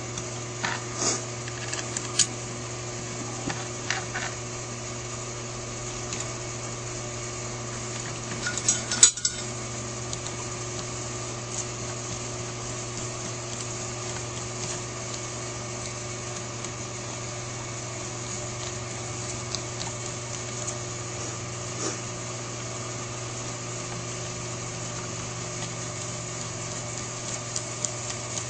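Light metallic clicks and clinks of small carburetor parts and screws being handled on a Holley 4000 four-barrel carburetor, scattered and sparse, with a louder cluster of clinks about nine seconds in. A steady low hum runs underneath.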